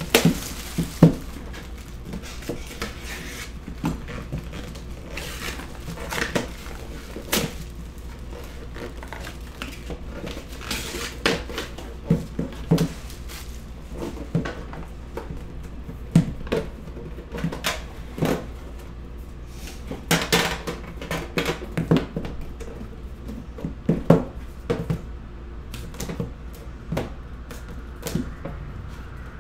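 Plastic shrink-wrap pulled off and crinkling at first, then the metal tin of a 2015 Panini Immaculate Collegiate box and the small cardboard boxes inside it being handled: scattered knocks, taps and light clanks of metal and card on a tabletop. A steady low hum sits underneath.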